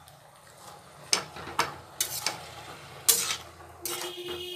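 Flat metal spatula stirring chopped mustard and bathua greens in a metal kadhai: a soft rustle of the leaves, broken by about five sharp knocks of the spatula against the pan over the middle of the stretch.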